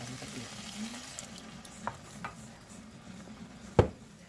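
Slotted spatula stirring and scraping a ground-meat tomato sauce in a non-stick frying pan on the heat, with scattered scrapes and a single sharp knock near the end as more sauce goes in.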